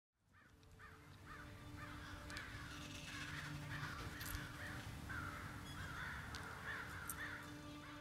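Crows cawing over and over, about two calls a second, fading in at the start and growing busier as several overlap a couple of seconds in.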